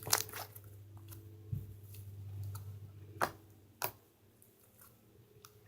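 Slime being handled, poked and stretched by hand, giving scattered sticky clicks and pops, over a low steady hum from a laundry machine.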